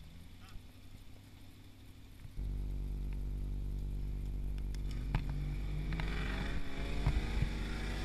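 Land Rover Discovery's V8 engine labouring up a slippery rocky climb. It runs quietly at first, then gets much louder about two seconds in. In the second half the revs rise and fall and a few sharp knocks come from the wheels and rocks.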